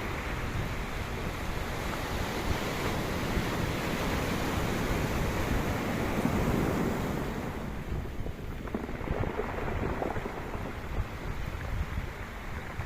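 Sea waves surging and washing ashore, with wind buffeting the microphone. The surge builds to its loudest about six seconds in, then eases off.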